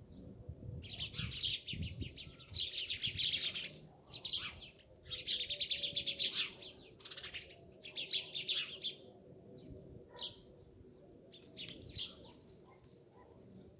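Many sparrows chirping at once in dense bouts of a second or two with short gaps, thinning to scattered chirps near the end.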